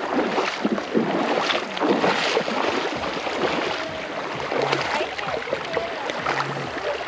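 Shallow rocky river water splashing and rushing as a person and a husky wade through it, with many small irregular splashes over the steady water noise.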